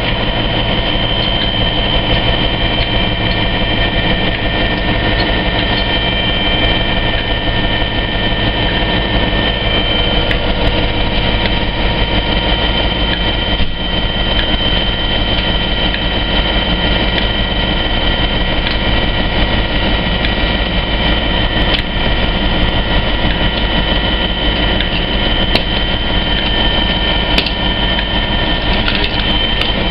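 Class 57 diesel locomotive's EMD two-stroke V12 engine idling close by: a loud, steady drone with a low rumble and a constant whine on top, with a few faint clicks near the end.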